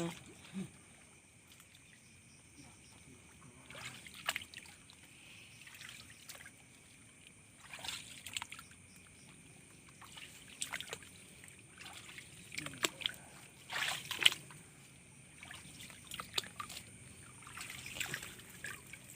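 Shallow ditch water splashing and trickling in scattered short bursts as someone wades and handles a submerged fish trap, with a faint steady high-pitched tone underneath.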